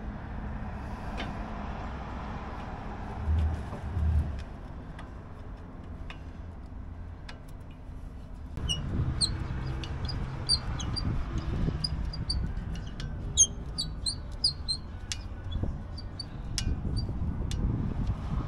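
Hand tools clicking and knocking on the steel winch of a 6x6 military wrecker, over a low steady rumble, with two dull thumps a few seconds in. From about halfway, small birds chirp repeatedly.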